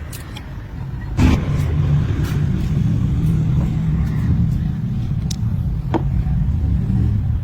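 Car engine running with a low, steady rumble that grows sharply louder about a second in and then holds steady.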